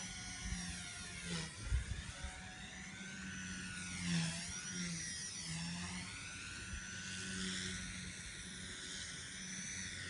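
WLToys V977 RC helicopter's brushless electric motor and rotor whining, the pitch swooping up and down again and again as it throws 3D manoeuvres. Gusty wind buffets the microphone, hardest about two seconds in.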